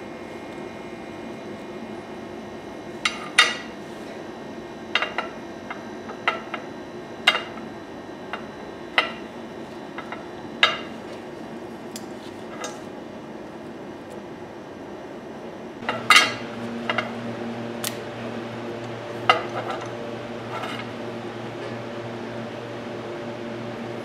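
Small metal carburetor parts, screws and a screwdriver being handled and set down on a sheet-metal worktop: scattered sharp clicks and clinks, about twenty in all. Underneath runs a steady background hum that changes in pitch about 16 seconds in.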